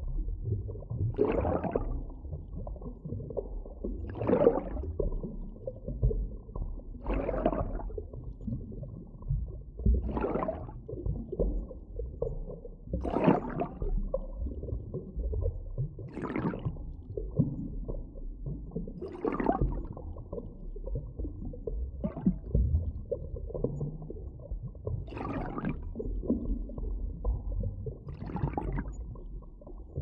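Underwater ambience: a steady low, muffled rumble with a rushing, gurgling swell that comes back very regularly about every three seconds.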